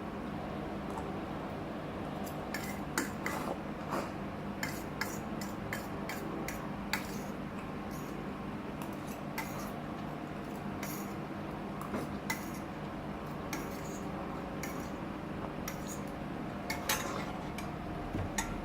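Eating utensils clinking and scraping against a dish while instant noodles are eaten, in scattered short clicks over a steady background hum.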